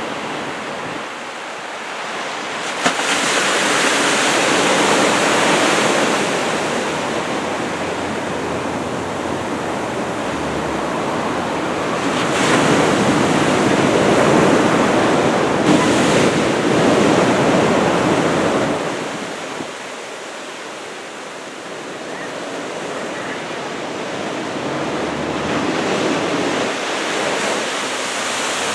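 Heavy ocean surf from an approaching typhoon's swell breaking, the roar of the water swelling and falling back in long surges as each wave comes in.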